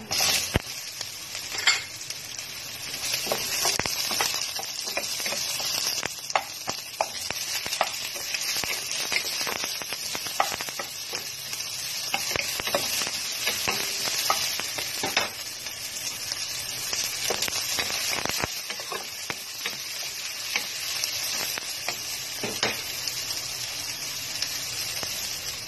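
Chopped red onion and garlic sizzling in hot oil in a pot, the sizzle starting sharply as the onion goes in. Frequent clicks and scrapes of a wooden spatula stirring against the pot run through it.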